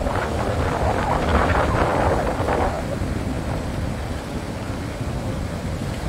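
Wind buffeting the microphone in a steady low rumble, with surf washing up the beach. The wash swells for the first two or three seconds, then dies down.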